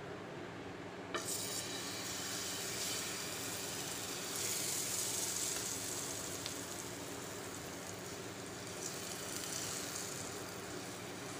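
Besan (chickpea-flour) batter sizzling on a hot, oiled nonstick tava. The sizzle starts suddenly about a second in as the batter hits the oil, grows louder around the middle as the batter is spread, then settles to a steady, softer sizzle.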